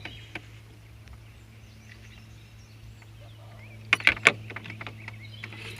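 A steady low hum, with two or three sharp knocks close together about four seconds in.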